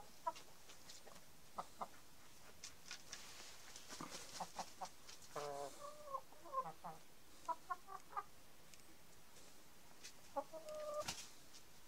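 Chickens clucking in short calls, around five to eight seconds in and again near the end, with a few sharp taps between them.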